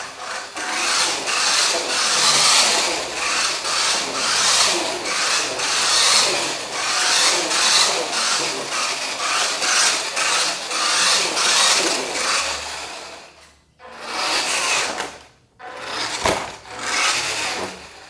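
Electric drive motor and gearbox of a WPL D12 RC mini truck running as it drives on a tile floor, the sound rising and falling in level and stopping briefly twice near the end.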